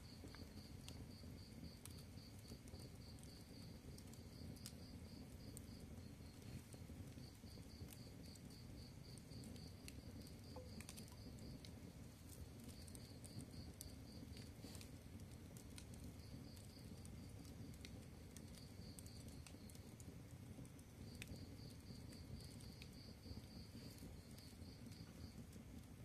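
Quiet wood fire burning, a low steady rumble with scattered faint crackles and pops from the burning sticks. A cricket chirps throughout in fast pulsed runs of a few seconds each, with short breaks between.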